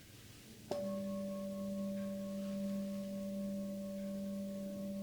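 Tibetan singing bowl struck once, under a second in, then ringing on steadily with a low hum and two higher overtones, barely fading.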